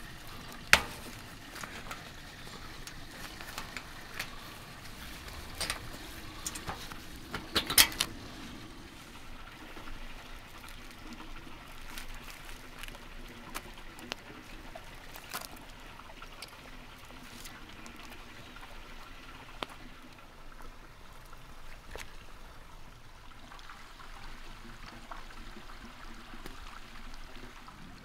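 Close handling noises: scattered sharp clicks and taps, the loudest about a second in and a cluster near eight seconds in, over a steady soft hiss.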